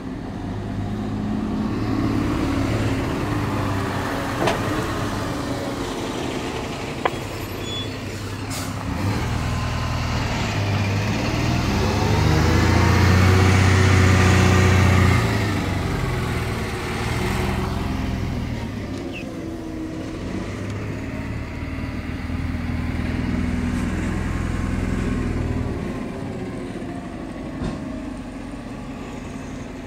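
Diesel engine of a yard shunter tractor unit running as it manoeuvres. It revs up to its loudest about halfway through, then drops back and rises again. There are a couple of short clicks.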